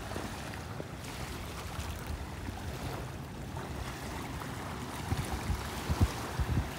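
Small waves lapping and washing onto a sandy shoreline, a steady rushing wash, with a few low thumps on the microphone near the end.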